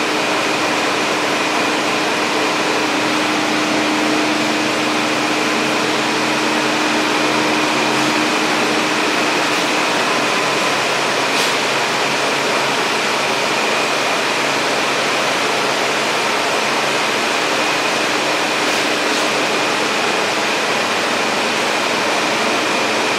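Steady, loud rushing noise with a thin high whine, and a low hum that fades out about ten seconds in.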